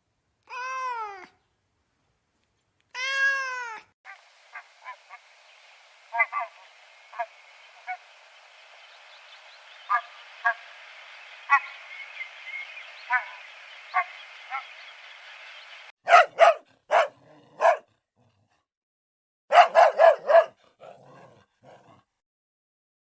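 A string of animal calls: two drawn-out, falling meow-like cries, then a long run of short clipped calls over a faint hiss, then clusters of sharp barks.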